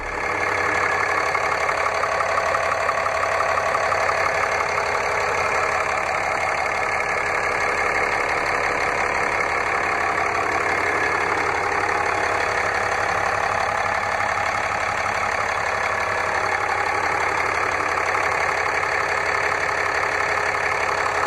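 Cummins 6.7-litre inline-six turbo diesel idling steadily, with a fast, even diesel clatter, heard up close with the hood open.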